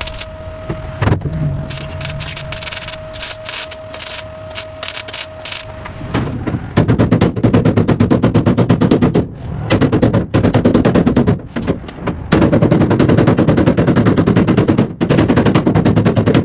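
Sheet-metal body panel being hammered down against a hand-held dolly. After a few scattered taps over a steady hum, the hammering comes fast and even, about ten blows a second, in runs of a few seconds with short pauses.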